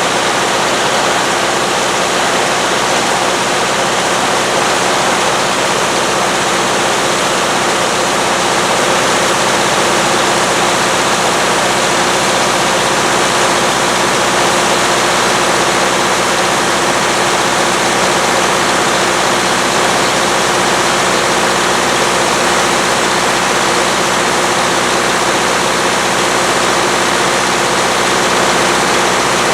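Combine harvester running steadily: a constant engine hum under an even rushing noise.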